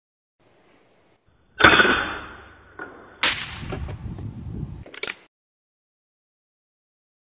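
A sudden sharp report from the Ataman M2 .25 calibre PCP air rifle about a second and a half in, fading over about a second. It is followed by another loud noisy sound just after three seconds that lasts over a second, and a short sharp click about five seconds in.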